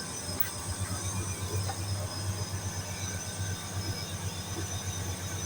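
Package air-conditioner unit running with a low hum that pulses rapidly, the noise it has been making, while its motor bearings have just been oiled to try to quiet it.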